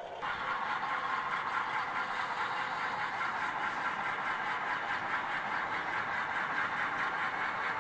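Model railroad train running on the layout track: a steady whirring rush of wheels and motor with faint fast clicking, starting suddenly a moment in.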